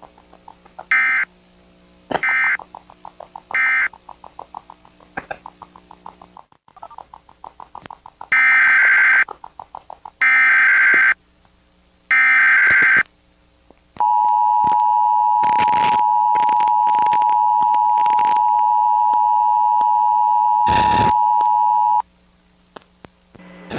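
Emergency Alert System alert: three short beeps and a run of rapid clicks, then three screeching data bursts of about a second each (the digital header), followed by the steady two-note attention tone held for about eight seconds, with scattered crackles over it.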